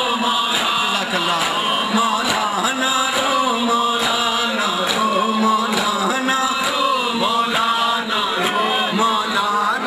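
A man chanting a Shia noha (lament) into a microphone, with rhythmic chest-beating (matam) keeping time at about two slaps a second.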